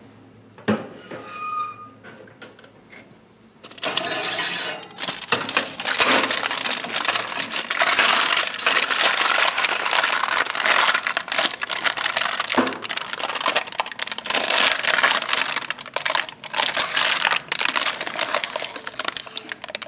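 Parchment paper crinkling and rustling loudly, with clicks and scrapes, as a tray of melted milk-jug lids is drawn out of a toaster oven and handled in knit oven mitts. A click and a short high tone come about a second in, before the handling starts.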